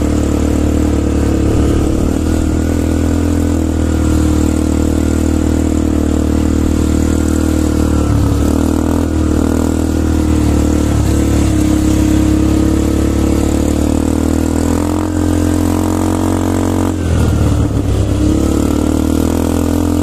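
ATV (quad bike) engines running steadily in a loud, continuous drone, with small shifts in pitch as the throttle changes.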